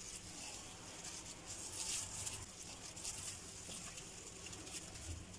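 Faint, irregular wet squishing of plastic-gloved hands rubbing a thick yogurt-and-spice marinade into chicken pieces in a glass bowl.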